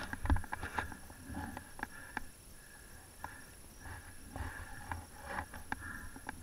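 Snowboard sliding and turning over soft snow, with a low wind rumble on the microphone and scattered clicks and knocks, the loudest just after the start.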